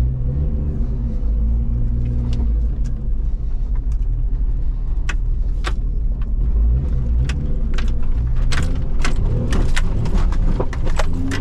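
A 1997 Jeep Wrangler TJ's engine running at low speed, heard from inside the cab as it crawls over a muddy, rough trail. Sharp knocks and rattles from the body and loose things in the cab come and go, growing more frequent in the second half.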